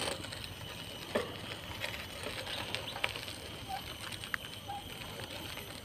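Quiet outdoor background hiss with a few light clicks and knocks from a handheld camera being handled, and a couple of faint short chirps near the middle.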